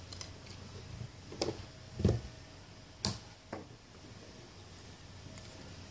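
A few light knocks and clicks of small metal scissors and a plastic straw being set down on a tabletop: four in all, the loudest a dull thump about two seconds in, then a sharper click about a second later.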